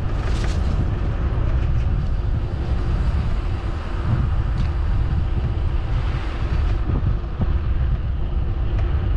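Wind buffeting the microphone on a moving bicycle: a steady low rumble.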